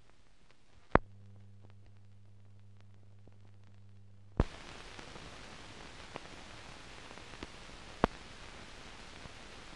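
Old film soundtrack carrying no programme sound, only its own noise. A low hum runs for a few seconds, then gives way to a steady hiss about four seconds in, broken by three sharp clicks.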